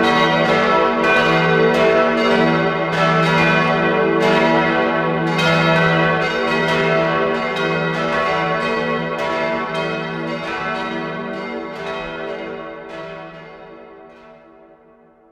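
Church bells ringing, struck about twice a second with overlapping, sustained tones; near the end the strikes stop and the ringing dies away.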